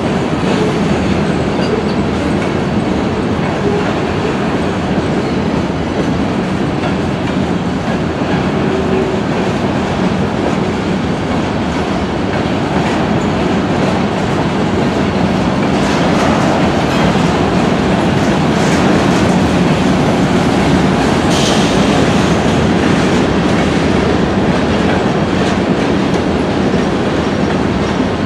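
Freight cars (boxcars and covered hoppers) rolling past steadily, their wheels clattering over the rail joints. A brief high-pitched screech comes about three-quarters of the way through.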